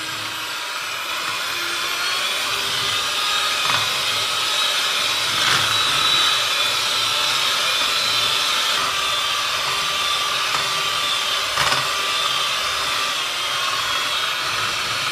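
Electric hand mixer running steadily at speed, its beaters whipping chilled whipping cream as it thickens, with a few brief knocks.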